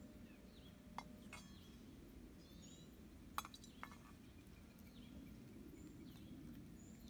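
A singing bowl's faint ring dies away about a second in, then a few light clinks and knocks as the bowl and its wooden striker are handled and set down. Birds chirp faintly now and then.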